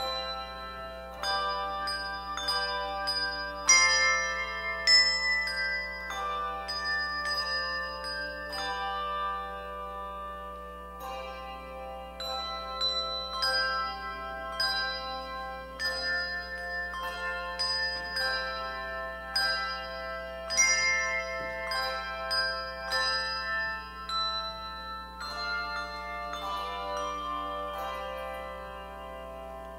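Handbell choir playing a piece: many handbells struck in chords and melody notes, each ringing on and overlapping the next.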